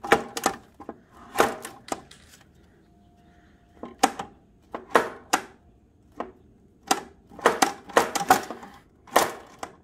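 Irregular sharp metal clicks and knocks from a snowblower's drive wheel being worked back and forth along its drive shaft, the wheel just broken free of old gummed-up grease with WD-40.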